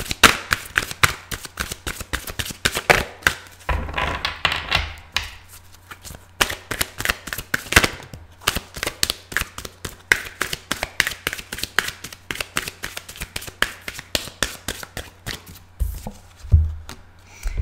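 A deck of large reading cards being shuffled by hand, packets passed from hand to hand, making a rapid, uneven run of card slaps and flicks. Near the end there are a couple of soft thuds as a card is laid down.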